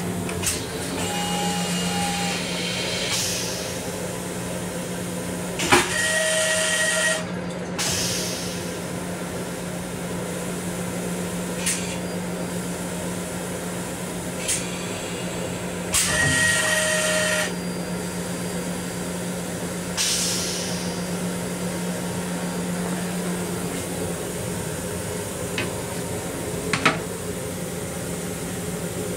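M7 railcar's vacuum toilet flushing twice, about ten seconds apart, each flush a loud burst lasting about a second and a half, over a steady low hum.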